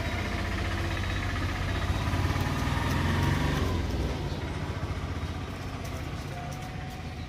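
A motor vehicle's engine running with a low, pulsing rumble, growing fainter after about four seconds as it moves away.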